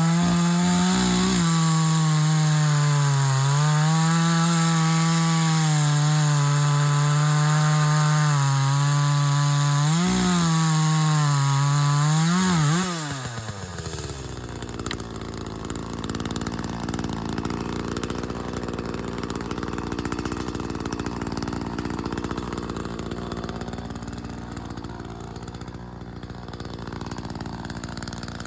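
Chainsaw running at full throttle while cutting wood, its pitch wavering and dipping briefly a few times under load. About halfway through it drops to a steady idle.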